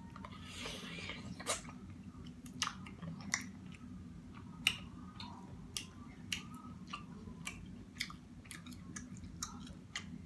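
A person eating seafood boil with the mic close to the mouth: wet chewing and lip smacks with frequent short sharp clicks, over a steady low hum.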